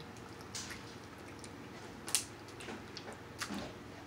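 A few faint, scattered clicks and cracks of king crab leg shells being handled and broken open by hand, the sharpest about two seconds in.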